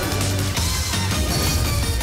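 Loud background score with a heavy bass line, playing under an action scene.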